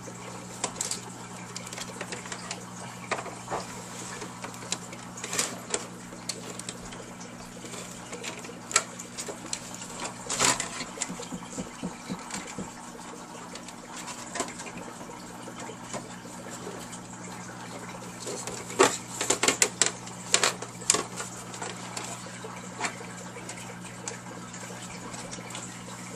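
Scattered clicks and taps of hands handling a plastic LCD monitor casing and working its ribbon-cable connector loose, with a quick run of sharper clicks about three quarters of the way through. A steady low hum runs underneath.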